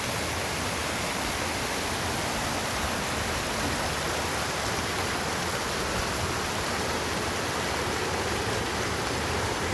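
Waterfall and its rapids: water falling and rushing over rock in a steady, unbroken roar.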